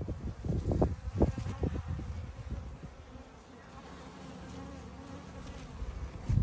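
A package of honeybees buzzing as a low, steady hum, with a series of low thumps and knocks in the first couple of seconds as the plastic package is lifted and handled, and another thump at the very end.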